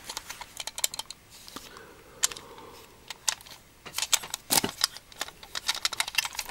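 Irregular small clicks and taps of a hard plastic toy airplane being handled and turned over in the fingers.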